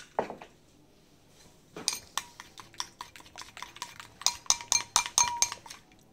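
Cutlery clinking quickly and repeatedly against a bowl as a sauce is stirred. The clinks start about two seconds in and go on for about four seconds.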